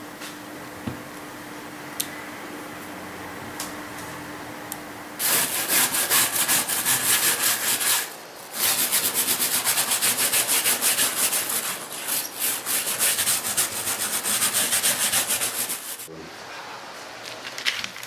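Fast back-and-forth scrubbing by hand across a leaded stained-glass panel, about five strokes a second. It starts about five seconds in, pauses briefly about three seconds later and stops a couple of seconds before the end. Before it there are only faint ticks, and a few clicks come near the end as the panel is handled.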